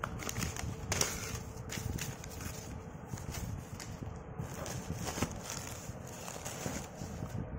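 Plastic air-cushion packing and a cardboard box rustling and crinkling while a boxed product is handled and pulled out, with sharp crackles about a second in and again after five seconds.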